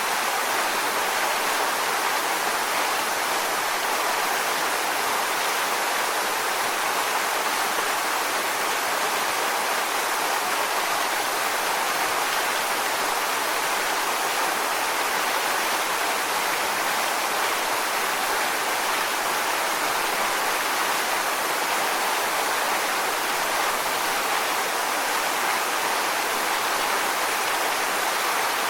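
Waterfall: a steady rush of falling water, even and unchanging, with most of its sound in the middle and upper range and little deep rumble.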